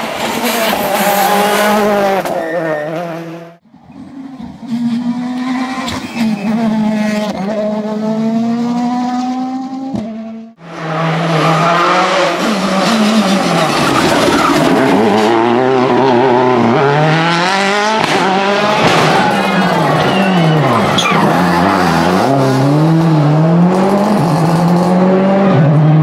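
Rally cars at full throttle, a Ford Fiesta rally car and a Citroën C4 WRC among them: engines revving hard, each climbing in pitch and dropping back at every gear change. Several separate passes, the sound cutting off abruptly twice, about four and ten seconds in.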